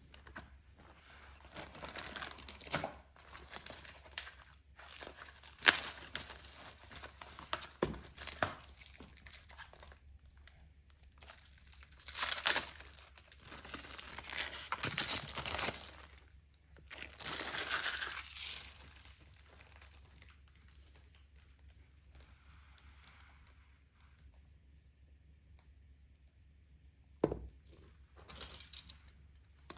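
TV packaging being handled and unwrapped: crinkling, rustling and tearing in irregular bursts, quieter in the last third, with a single knock near the end.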